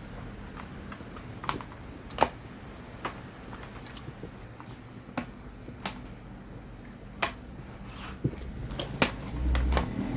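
Plastic snap clips of a Lenovo V15 laptop's bottom cover clicking loose one by one as the cover is pried off, in scattered sharp clicks, the loudest about two seconds in.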